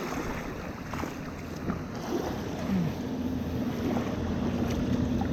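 Steady rush of river water flowing around the angler, with wind buffeting the microphone.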